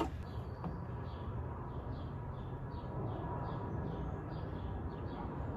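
A small bird chirping over and over, short high chirps about three a second, over a low steady background rumble.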